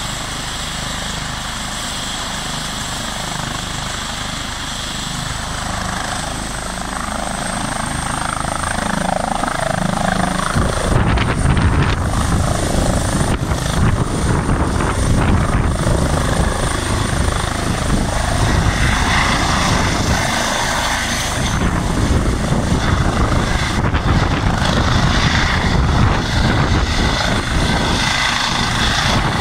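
Eurocopter EC135 twin-turbine helicopter spooling up for takeoff: a steady turbine whine over rotor noise, growing louder over the first ten seconds or so. It then becomes a heavy, continuous rotor sound as the helicopter lifts off and hovers low.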